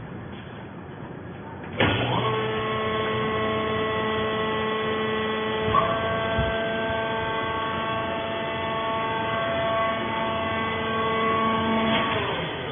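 Coir fiber baler's hydraulic power unit switching on suddenly and running with a steady electric whine for about ten seconds, then winding down with a falling pitch.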